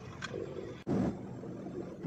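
Truck running along a road, heard from inside the cab as a steady engine and road rumble. It breaks off abruptly a little under a second in and comes back louder.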